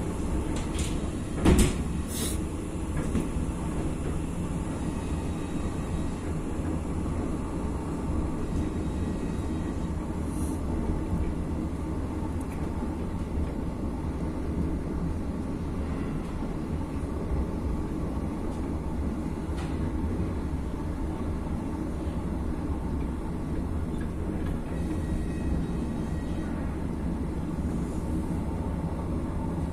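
Steady low running rumble heard from inside a moving rail passenger car, with one sharp knock about a second and a half in.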